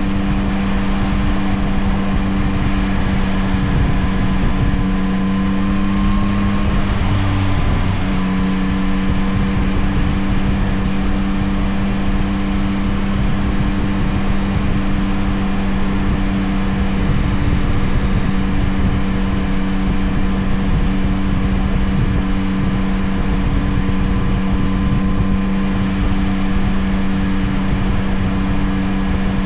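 Yamaha CP3 890 cc inline-three engine of a Tracer 9 GT+ motorcycle running at steady riding revs over a steady hiss. About seven seconds in, its pitch rises a little, then drops briefly and settles steady again.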